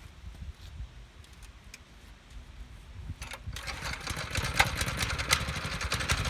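Small pull-start petrol engine on a concrete finishing machine catching on the first pull about three and a half seconds in, then running steadily.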